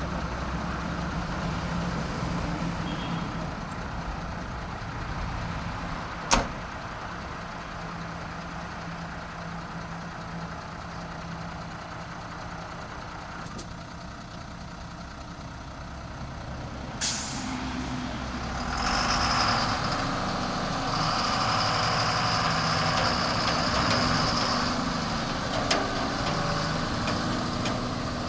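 Diesel dump truck's engine idling, with one sharp knock about six seconds in. Near the middle comes a short burst of air hiss like an air brake releasing. The engine then speeds up as the truck moves off, with a steady high tone over it for a few seconds.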